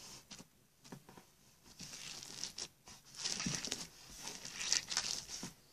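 Hands squishing and stretching sticky homemade slime with beads mixed in, giving faint, irregular crackling and rustling that picks up after the first second or so.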